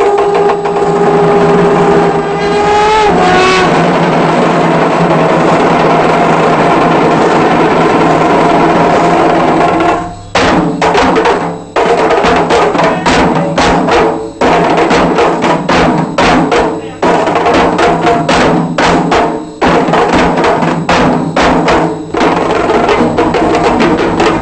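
A conch shell blown in one long steady note that bends up slightly and stops about three seconds in, over a troupe of traditional Sri Lankan bera drums. The drums then play on alone in fast rhythmic strokes with brief breaks.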